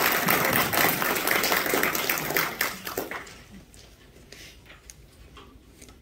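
Audience applauding, dying away about three seconds in, followed by a few faint taps.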